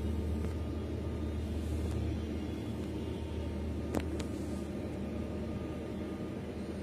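Steady low machine hum and rumble, with one sharp click about four seconds in.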